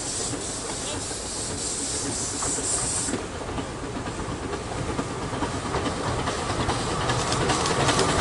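Small 2 ft gauge steam locomotive Sea Lion approaching with a train of carriages, hissing steam, with the hiss cutting off about three seconds in. The train's running and the clicking of the wheels on the rails grow louder as it draws near.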